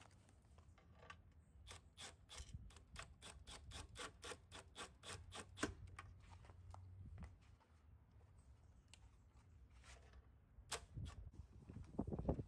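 Cordless impact driver driving washered bolts down into T-nuts, heard faintly as an even run of sharp clicks, about four or five a second, that stops about halfway through. A few louder knocks near the end.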